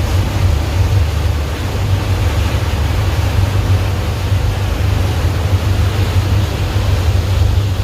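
Ferry engine running steadily: a loud, constant low hum under an even rushing noise.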